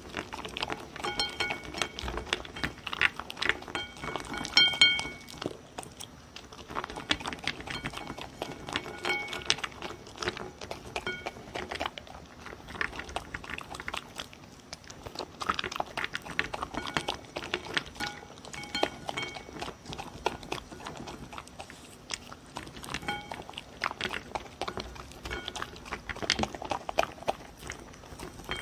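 A dog eating dry food pieces from a bowl close to the microphone: continuous crunching and chewing, with many quick, irregular clicks of teeth on the hard pieces.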